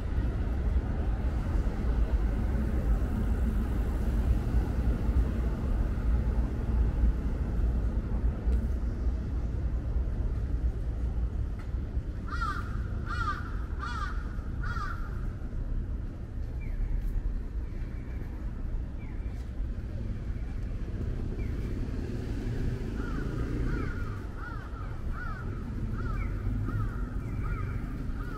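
A crow cawing about five times in quick succession midway, over a low steady rumble of street traffic; later a long run of quicker, higher bird calls repeating.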